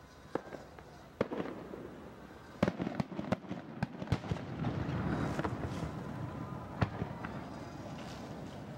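Aerial fireworks shells bursting in a string of sharp bangs, thickest in the middle, with a rumbling crackle after the cluster and one more lone bang about two-thirds of the way through.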